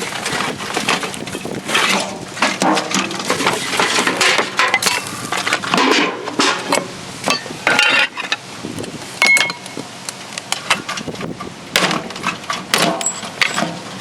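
Irregular clattering and knocking of hard objects being moved and handled, with many separate knocks and clinks throughout.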